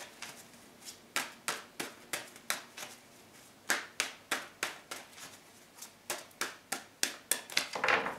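A tarot deck being shuffled by hand: a run of sharp card snaps, two or three a second, with a short pause about three seconds in.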